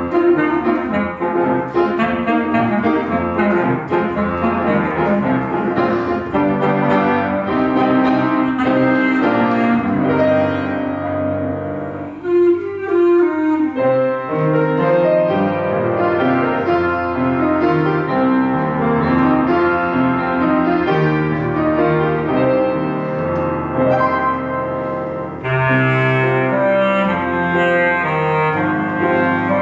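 Ever büree, the Mongolian double-reed horn, playing a solo melody over upright piano accompaniment, with a brief break in the line about twelve seconds in.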